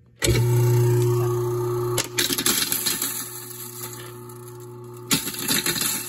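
An InSinkErator Evolution Compact 3/4 hp garbage disposal switches on a moment in and runs with a steady motor hum while ice cubes are ground and rattle inside it. The grinding clatter grows about two seconds in, with a sharp knock near the end.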